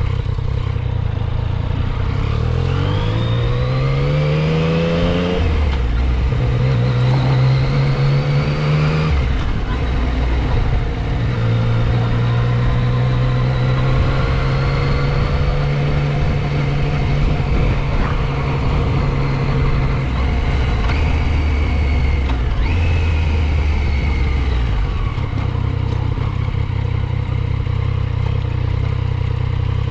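2015 Yamaha FJ-09 Tracer's 847 cc three-cylinder engine on the road. It pulls hard with the pitch rising, drops in pitch at gear changes around five and nine seconds in, then holds a steady cruise before easing off to a lower, steady note in the last third.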